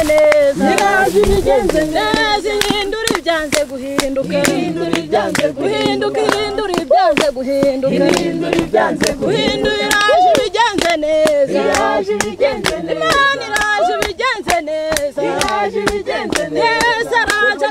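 A group of men and women singing a worship song together in chorus, with steady rhythmic hand clapping and no instruments.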